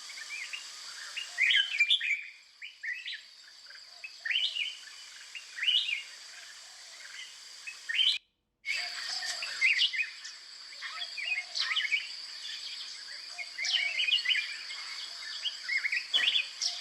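Small birds chirping repeatedly, many short rising chirps overlapping, over a steady high-pitched hiss. The sound cuts out completely for about half a second partway through.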